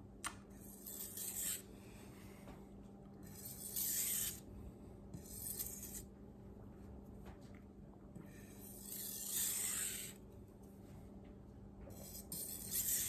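SG2 steel kitchen-knife blade drawn in long strokes across an 800-grit Japanese water stone: five gritty scraping hisses a couple of seconds apart, the passes that reduce a large burr on the edge.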